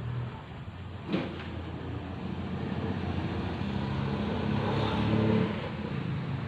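A motor vehicle's engine running nearby, growing louder from about halfway through and easing off near the end. There is a single sharp click about a second in.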